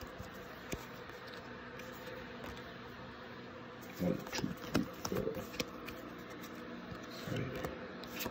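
Pokémon trading cards being handled and flipped through, with faint soft clicks over a steady low hum. A man's voice makes a few brief murmurs about four seconds in and again near seven seconds.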